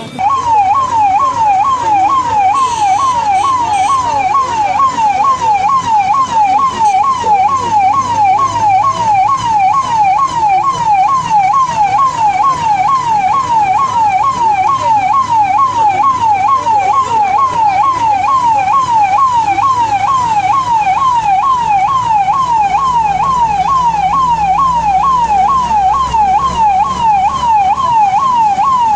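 A siren yelping in fast, even up-and-down sweeps, about two a second, loud and unbroken, cutting off abruptly near the end.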